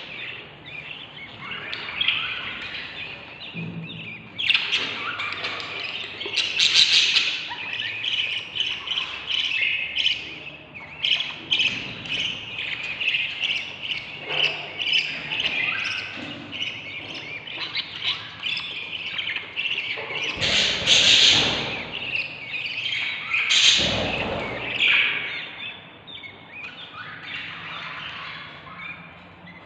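Baby budgerigar chicks in a nest box chirping hungrily without pause, with a few louder, harsher squawks, about a third of the way in and twice near the two-thirds mark.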